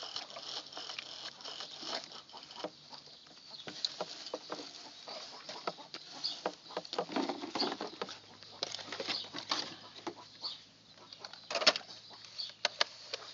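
Clicks and knocks of plastic toy trucks being handled and pushed over garden soil, the sharpest cluster near the end. Chickens cluck in the background.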